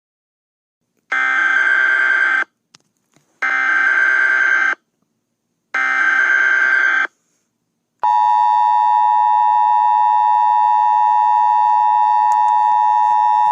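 Emergency Alert System signal: three short bursts of digital header tones (the SAME data header), each about a second long with brief gaps, then from about eight seconds in the steady two-tone EAS attention signal, held without a break.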